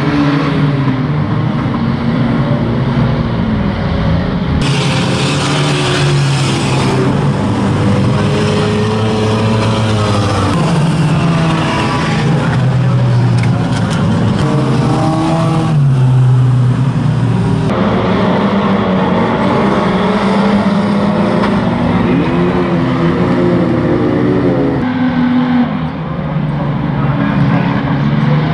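Several old banger racing cars' engines running and revving hard as they race around a shale oval, pitch rising and falling with the throttle. The mix of engines changes abruptly several times, about five seconds in, near the middle and again near the end.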